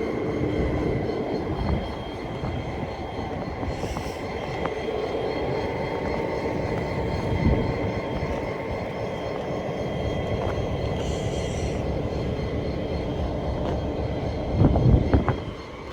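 Pacific National 81 class diesel-electric locomotives, with EMD 16-cylinder two-stroke engines, idling at standstill at the head of a coal train: a steady engine drone with a constant whine above it. Short hisses about 4 and 11 seconds in, and a few heavy knocks near the end.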